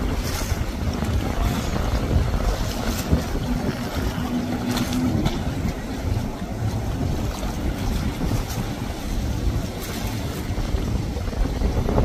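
Jet ski engine running at speed through choppy water, with water noise and wind rumbling on the microphone; a short steady engine tone rises out of the noise about four seconds in.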